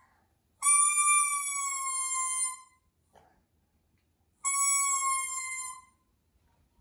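A baby's plastic toy trumpet blown in two long toots, the first about two seconds, the second about a second and a half, each sagging slightly in pitch.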